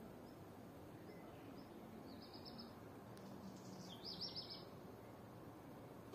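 Faint outdoor background hiss with a small songbird chirping: two short runs of quick, high notes, about two seconds in and again, a little louder, about four seconds in.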